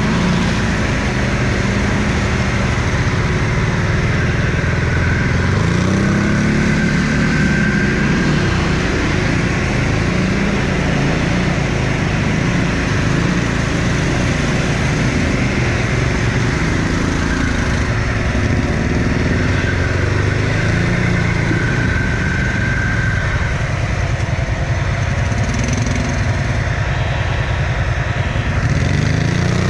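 Quad bike (ATV) engine running while ridden off-road. Its pitch rises and falls again and again as the throttle is opened and closed.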